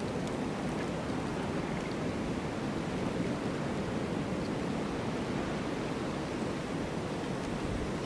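Strong blizzard wind blowing steadily, an even, low rushing noise without gusts or breaks.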